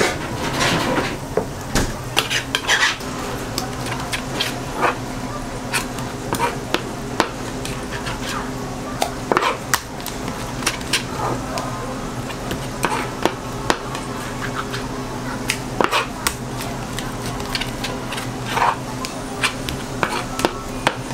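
Metal knife blade tapping and scraping against a plastic cutting board and a metal frame as fish-cake paste is spread and cut: irregular sharp clicks and clacks over a steady low machine hum.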